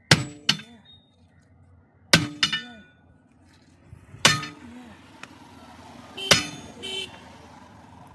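Hammer striking steel tyre tools in about seven ringing metal blows, mostly in quick pairs, knocking at a truck wheel nut that is too tight to undo by hand.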